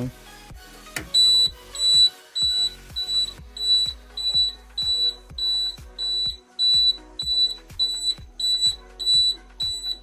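Eicher 242 tractor's turn-indicator flasher buzzer beeping about twice a second with a high, even tone, each beep paired with a soft click of the flasher. A sharp switch click about a second in starts it.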